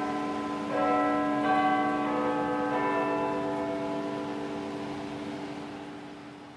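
Church bells tolling: several bells struck one after another, with a new strike about a second in, another soon after and a last one under three seconds in, then the ringing slowly fades away.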